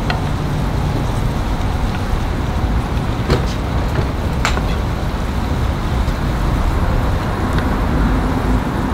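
Wooden spatula stirring greens in a frying pan on a gas grill's side burner, tapping sharply against the pan a little over three seconds in and again about a second later, over a steady low rumble.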